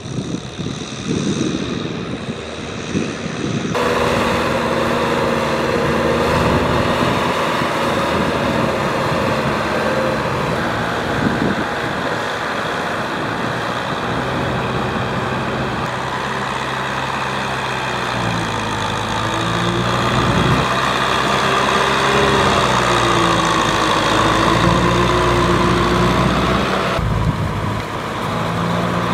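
Kubota M6040 tractor's diesel engine running steadily under load while its rear rotary tiller churns through wet paddy mud. The engine note wavers in pitch in the second half.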